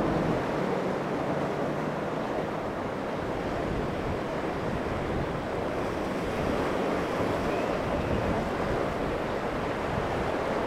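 Rough inlet water: waves breaking and churning, with wind buffeting the microphone. A low drone of outboard engines from a passing boat fades out over the first couple of seconds.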